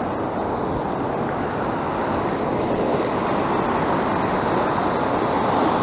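Ocean surf washing in over the shallows, a steady rushing wash of broken waves, with some wind on the microphone.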